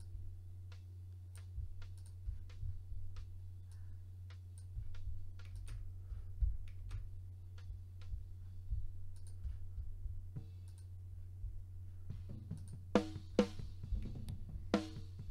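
Computer mouse clicking, a click every second or so, over a low steady hum. About twelve seconds in, a recorded metal drum kit starts playing back with hard, evenly spaced drum hits.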